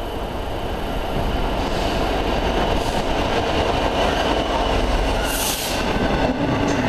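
British Rail Class 66 diesel locomotive, with its two-stroke V12 engine running, passes close with a train of bogie hopper wagons, followed by the steady rumble of the wagons rolling by. There is a brief hiss about five seconds in and a few sharp wheel clicks near the end.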